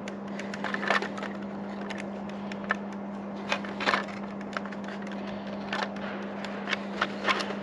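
Light, irregular clicks and ticks from a hand-turned 3D-printed plastic cutaway model of a sleeve-valve cylinder as its crank, piston and sleeve move, over a steady low hum.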